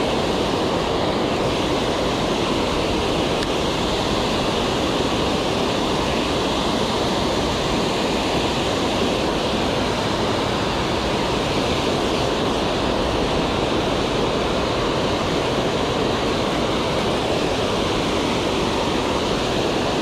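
Water pouring over a low concrete spillway dam: a steady, unbroken rush of falling water.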